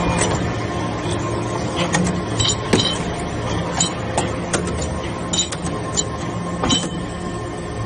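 Hydraulic briquetting press for metal chips running with a steady hum. Sharp metallic clinks come a dozen or so times through it as the pressed briquettes are pushed out onto the tray.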